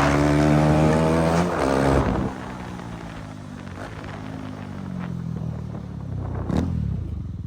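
KTM Duke 390's single-cylinder engine running with its exhaust removed, the revs rising and falling for about two seconds before the sound drops to a quieter, lower run. A single sharp crack comes near the end.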